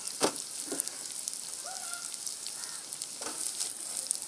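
Battered chicken pieces stir-frying in hot oil in a non-stick frying pan: a steady sizzle broken by a few sharp knocks, the loudest just after the start.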